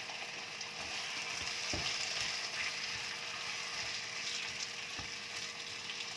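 Onion and tomato sizzling steadily as they are sautéed in hot oil in a pan, with a couple of short knocks, one about two seconds in and one near the end.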